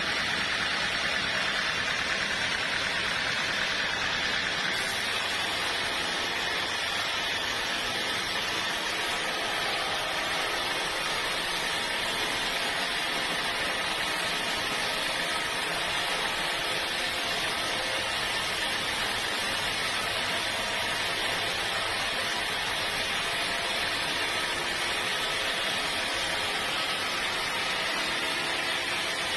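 Sawmill machinery running steadily: an even mechanical hiss and hum that does not change in level.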